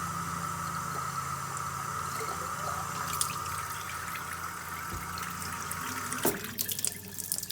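Water running from a tap into a bottle, a steady rush that cuts off suddenly about six seconds in, followed by a few clicks.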